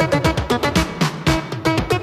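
Background music with a steady, quick beat and pitched instrument notes.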